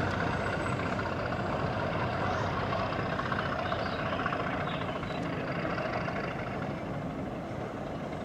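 Class 37 diesel-electric locomotive with its English Electric V12 engine working under power as it hauls a train away, a steady heavy diesel drone that slowly fades.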